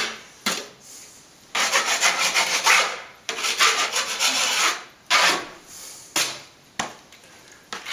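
Trowel spreading and scraping wet cornice cement plaster over a wall patch: a series of rasping strokes, several over a second long, with short pauses between.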